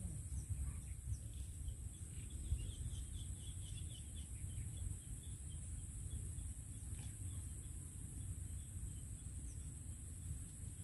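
Open-country ambience: a steady high insect drone, with a bird twittering in a quick run of short chirps a couple of seconds in, over a low rumble of wind on the microphone.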